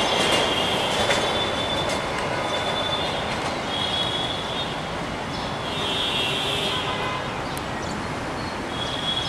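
Passenger coaches of the Subarna Express rolling away along a curve, their wheels on the rails making a steady noise that slowly fades. High-pitched wheel squeal comes and goes several times.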